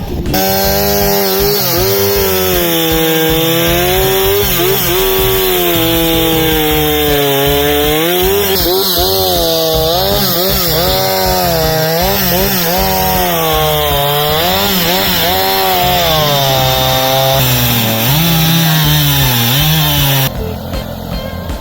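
Chainsaw running at high revs and cutting wood, its engine pitch dipping and rising over and over as the chain bites into the cut and frees. It stops abruptly near the end.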